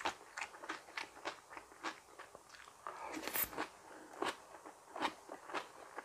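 A person chewing crunchy raw vegetables: a steady run of crisp crunches, about two or three a second. A longer, louder crunch comes a little past three seconds in.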